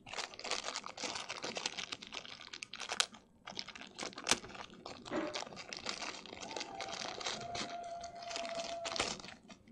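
Thin clear plastic bag crinkling and rustling in the hands as a braided earphone cable is worked out of it, with many small sharp crackles.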